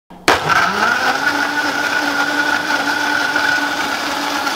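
Vitamix blender motor starting up and running, blending a thick mix of ice, protein powder and almond milk. Its pitch rises over the first second as it spins up, then holds steady.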